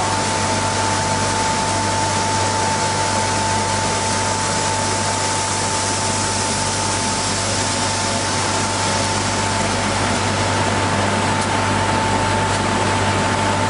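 Industrial wide-belt sanding machine running steadily as a poplar wood snowboard core feeds through on its perforated conveyor: an even rushing noise with a constant high whine and a low hum underneath.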